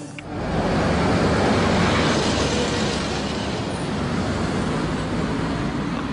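Street noise: a steady rumble of road traffic that starts abruptly.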